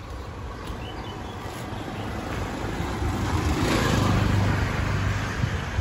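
Street traffic: a road vehicle passing close by, its engine and road noise growing louder to a peak about four seconds in and then easing off, over a steady low engine hum.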